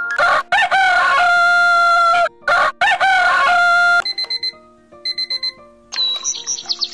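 A HOMVILLA 8813 alarm clock's speaker plays a recorded rooster crowing twice, then a few short electronic beeps, then recorded birdsong that starts near the end. These are the clock's selectable alarm sounds being played in turn.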